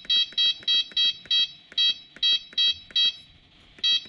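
Kubota KX040-4 mini excavator's dash control panel beeping as its buttons are pressed in quick succession, with the engine off. There are about a dozen short, high electronic beeps at uneven spacing, then a pause of under a second near the end before the beeps start again.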